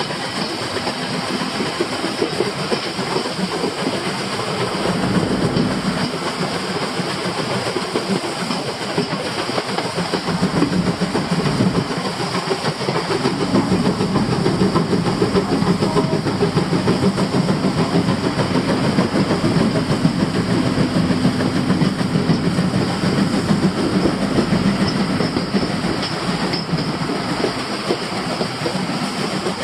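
Steam locomotive C11 325, a Class C11 tank engine, working under steam with its train on the adjacent track: a steady, dense clatter of wheels on rail mixed with exhaust, heard from a car running alongside. The sound grows a little louder about halfway through.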